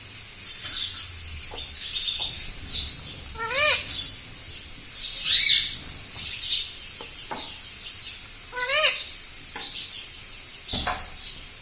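Indian ringneck parakeet giving short chirps and squawks. A louder rising-and-falling call comes twice, about five seconds apart.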